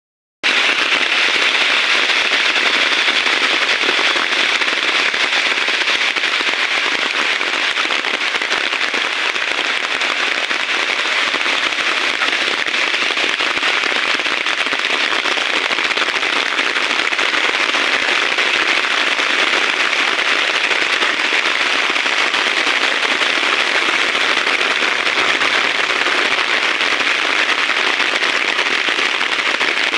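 Heavy rain falling steadily, a dense crackling patter that cuts in abruptly just after the start.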